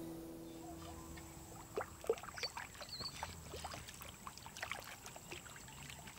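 A lapwing bathing in shallow water, flicking and splashing water with its wings in a quick run of small splashes and drips that begins about two seconds in.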